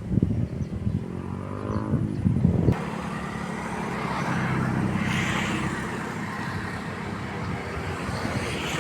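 A motor engine running steadily, after a few seconds of uneven low rumbling that changes suddenly about three seconds in.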